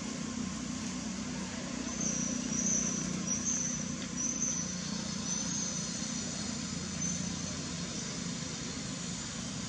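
Outdoor ambience: a steady low hum under a faint hiss, with a run of short, high-pitched chirps between about two and seven seconds in.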